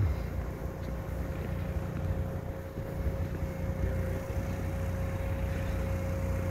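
Sealegs amphibious boat's engine running steadily as it drives up the beach on its wheels: a low rumble with a thin steady whine, and wind on the microphone.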